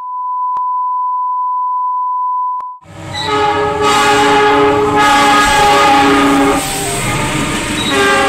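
A steady 1 kHz test tone for nearly three seconds, then a diesel-electric locomotive's horn sounding a long, loud multi-note chord as the train passes, over engine and rail noise.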